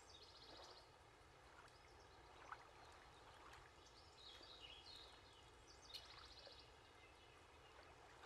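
Near silence, with a few faint high chirps and small ticks now and then.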